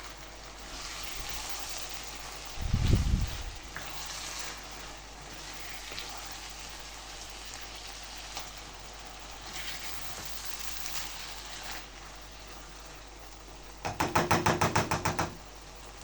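Onion stew sizzling as it fries in oil in a pan, the hiss swelling and fading. There is a low thump about three seconds in, and a quick run of about eight sharp knocks near the end.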